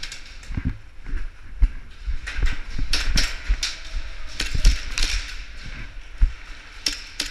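Hurried footsteps and rustling of clothing and gear, with scattered sharp clicks and knocks at an irregular pace.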